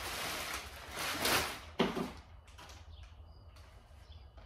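Crumpled brown packing paper rustling and crackling as it is pulled out of a cardboard box and thrown down. The rustling is strongest just over a second in and ends with a sharp click a little before two seconds. After that come only faint, scattered rustles.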